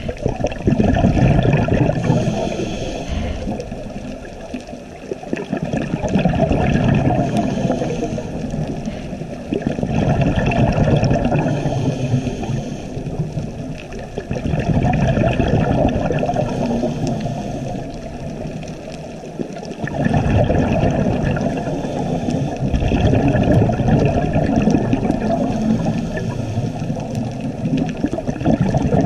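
Scuba breathing heard underwater: the regulator's exhaled bubbles rumble and gurgle in swells every four to five seconds, with softer gaps between breaths.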